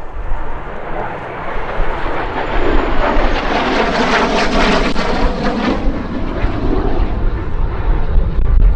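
Aero L-39 Albatros turbofan jet aircraft flying past: the jet noise swells to a peak about halfway through, then fades away.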